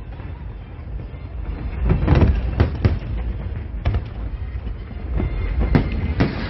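Aerial fireworks bursting: a series of sharp bangs, several close together about two seconds in and more toward the end, over a steady low rumble.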